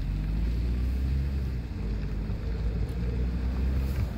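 Steady low rumble and hum of a car driving slowly, heard from inside the cabin.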